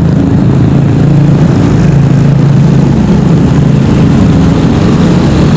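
A motor running steadily at an even pitch, a constant low hum with no change in speed.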